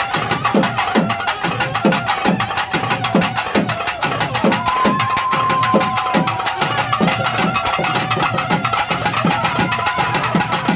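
Temple festival music: fast, dense drumming with a wind instrument holding long notes above it that bend slightly up and down.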